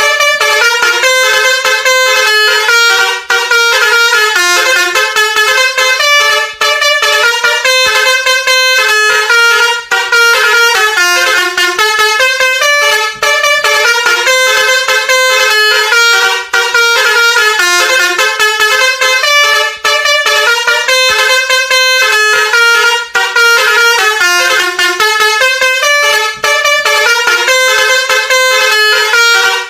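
Basuri V3 multi-tone horn playing a quick stepping melody in a loop. The same phrase repeats about every three and a third seconds, with a brief gap between loops.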